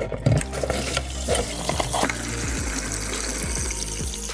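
Engine coolant gushing out of a just-opened coolant hose and splashing hard onto the action camera and into a plastic bucket, a steady spraying splash with a few clicks near the start as the hose comes free.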